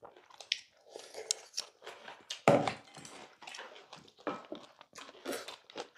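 Close-miked eating sounds: chewing and slurping mouthfuls of bibimbap, with spoons and chopsticks knocking and scraping in stainless steel bowls, one louder sound about two and a half seconds in.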